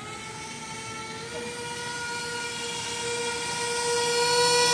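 Aquacraft Cajun Commander RC airboat's motor and air propeller whining steadily at high pitch on a pass, growing louder as the boat comes closer.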